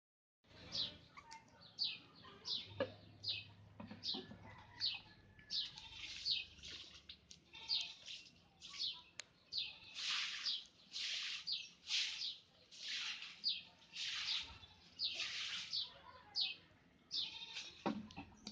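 Young puppy crying in a long run of short, high squeaks, under two a second; from about halfway the cries come louder, longer and about one a second.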